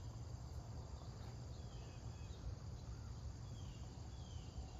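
Steady high-pitched chorus of insects over a low rumble, with several faint short falling chirps of a bird.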